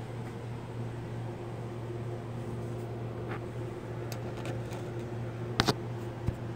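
Steady low machine hum, with a few faint clicks and a sharp double click about five and a half seconds in.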